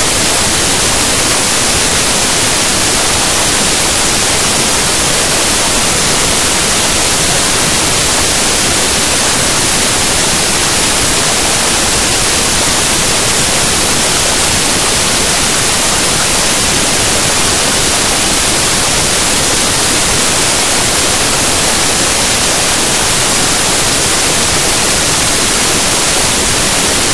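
Loud, steady static hiss of white noise on the audio track, with no program sound coming through. It cuts in abruptly and cuts out abruptly.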